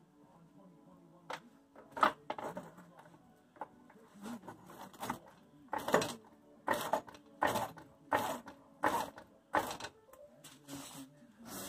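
Floor jack being pumped by its handle, each stroke a sharp mechanical clack, settling into a regular beat of about one stroke every three-quarters of a second from midway. The jack is raising the lower control arm and compressing the front coil spring into its pocket.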